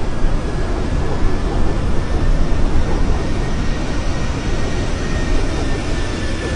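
Strong wind buffeting the microphone: a loud, gusty low rumble, with a faint, steady high whine above it.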